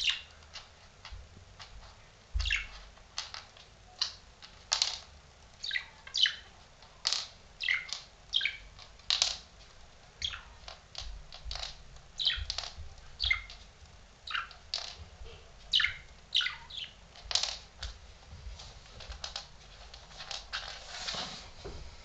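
Budgerigar chirping over and over: short, sharp, high calls coming about once or twice a second.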